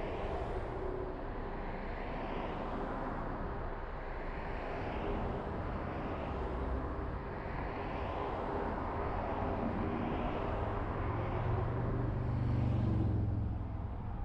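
A car driving along a road: steady tyre and road noise with wind rush, swelling every couple of seconds. A low hum builds and is loudest near the end.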